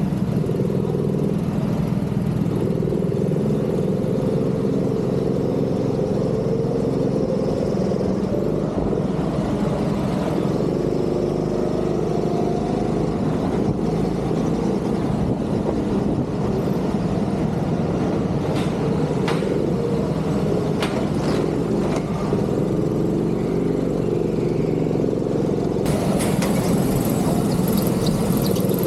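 Go-kart engine running hard on track, its pitch rising and falling as the throttle goes on and off. A few sharp clicks come in the second half, and a hiss joins near the end.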